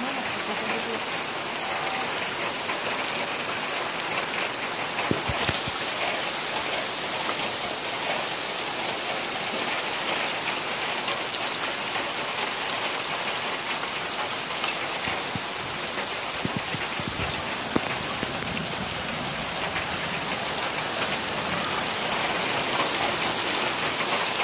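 Downpour: heavy rain falling steadily on a wet gravel road and grass, an even rush of noise throughout.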